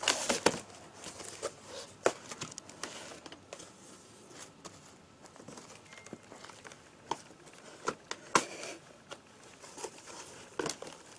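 Cardboard box wrapped in duct tape being cut and pulled open: scattered crinkles, scrapes and rustles of cardboard and tape, with sharp clicks and knocks just after the start and about eight seconds in.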